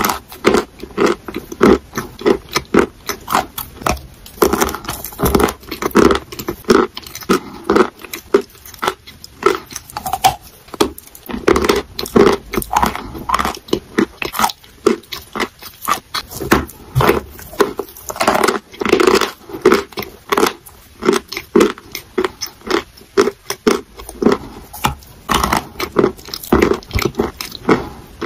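Close-miked eating of a wet, clay-like paste off a chalk block: sticky chewing and lip-smacking mouth sounds, a rapid, irregular run of wet clicks and crackles.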